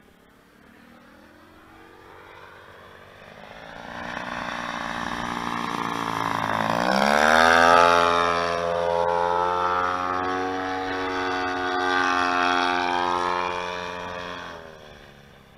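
DLE 111 twin-cylinder two-stroke gasoline engine and propeller of a 107-inch Pilot Edge RC aerobatic plane. It grows louder as the plane approaches, drops in pitch as it passes low about seven seconds in, then drones steadily and fades away near the end.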